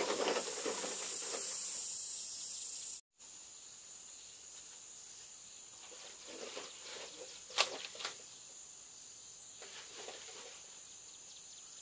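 Bamboo poles being handled among leafy undergrowth: rustling and scraping, with two sharp knocks of pole on pole a little over halfway through. A steady high drone of insects runs underneath. The first three seconds hold a louder rush of rustling that cuts off abruptly.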